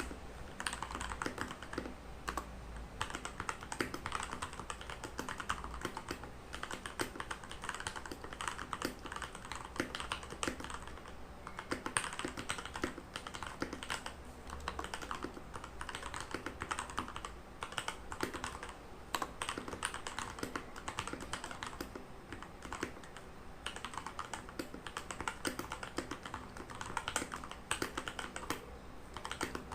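Redragon Kumara mechanical keyboard with lubed Outemu Red linear switches being typed on continuously: a dense, fast stream of keystrokes with a few brief slower moments.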